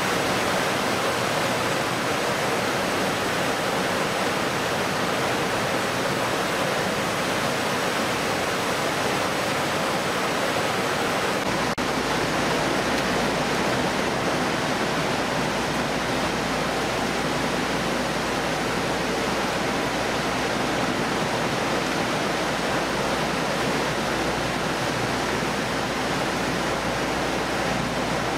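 Steady rushing of water jets spraying over gutted fish in a stainless-steel washing trough, mixed with the noise of the processing line. About twelve seconds in the sound shifts slightly and a low hum joins.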